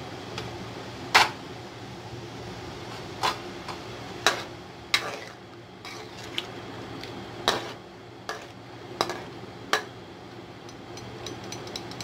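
A spoon knocking against a metal cooking pot while raw mango pieces are stirred in boiling jaggery water: about nine sharp clinks at uneven intervals, the loudest about a second in, over a steady low hum.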